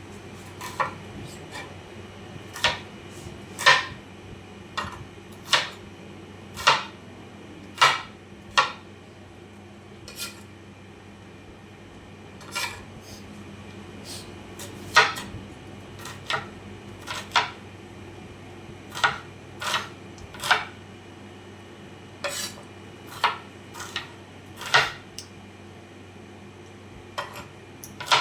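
A knife knocking on a cutting board as onions are sliced: sharp, irregular taps about once a second, some louder than others.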